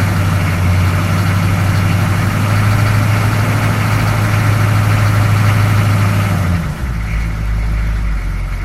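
6.2 diesel V8 being cranked over by the starter with a steady drone for about seven seconds, then catching and running at a deeper, rough idle. The hard start and rough idle are what the owner hopes a new fuel filter will cure.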